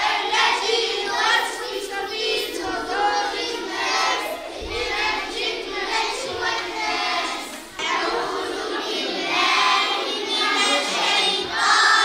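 A group of children reciting Quran verses aloud together in unison, in a chanted, sing-song voice. About eight seconds in there is a brief drop, then the children's chanting carries on.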